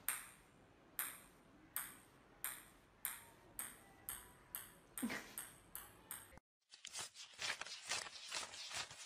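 A small hollow plastic ball, like a ping-pong ball, bouncing on a tiled floor: about a dozen ringing pings that come faster and faster as the bounces die away. After a short gap about six and a half seconds in, a dense run of quick crackles takes over.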